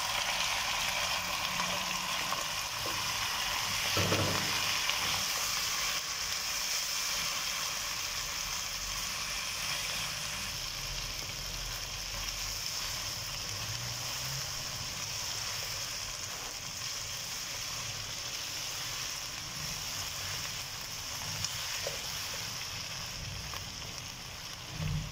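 Mutton pieces and fried onions sizzling steadily in hot ghee in a non-stick wok, stirred now and then with a spatula, at the bhuna (dry-frying) stage of the curry. A single knock sounds about four seconds in, and the sizzle eases a little over time.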